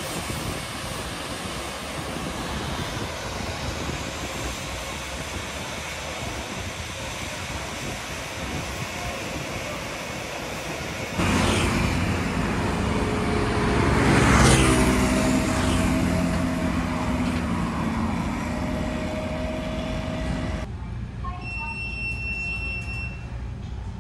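Steady rumble of traffic, then about 11 s in a train passes close by: the sound jumps up suddenly, peaks about three seconds later with its tones sliding down in pitch as it goes by, and fades away over the following seconds.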